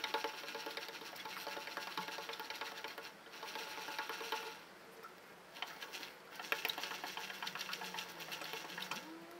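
Rapid, even clicking from a motorcycle drive chain as it is worked over during cleaning, in two long bouts with a pause of about a second between them.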